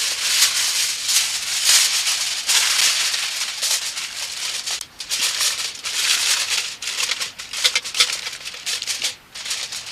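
Aluminium foil crinkling and rustling as it is pressed and folded around the rim of a casserole to seal it as a lid, in a steady run of sharp crackles with short pauses around the middle and near the end.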